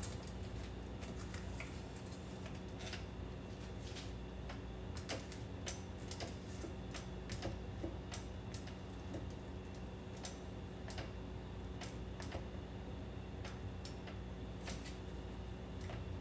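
A spatula scraping and tapping against a stainless steel mixing bowl and a stand mixer's paddle beater while cake batter is folded by hand, giving scattered light clicks at an uneven pace. A low steady hum runs underneath.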